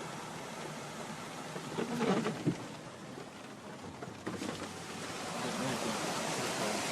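Steady rush of heavy rain and floodwater running off, growing louder about five seconds in. A few brief faint murmurs come about two seconds in.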